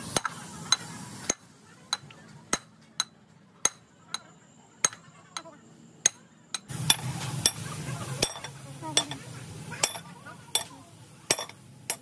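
A sledgehammer striking the end of a long steel bar held through the steel mounting bracket of a hydraulic breaker, about twenty sharp metal-on-metal clangs with a ringing tail, roughly one every half second to second.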